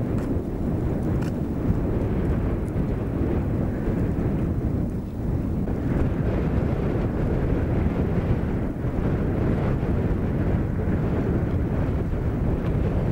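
Brush burning where the lava flow has set it alight: a steady, low rumbling noise.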